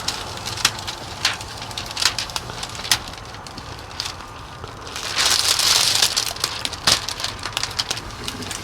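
Thin plastic window-tint film crinkling and crackling as it is handled, with scattered sharp clicks throughout and a hiss lasting about a second and a half about five seconds in.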